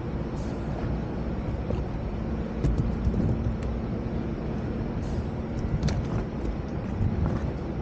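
Sea-Doo FishPro jet ski's engine idling steadily as a low hum, with a few faint clicks.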